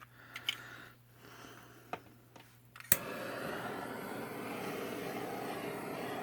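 A handheld butane torch clicked on with a sharp snap about three seconds in, then its flame hissing steadily, used to pop bubbles and raise cells in wet acrylic pour paint. A few light handling ticks come before the ignition.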